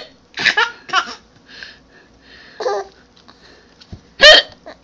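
Hiccups: a few short vocal bursts, the loudest a sharp hiccup about four seconds in, with brief laughing sounds in between.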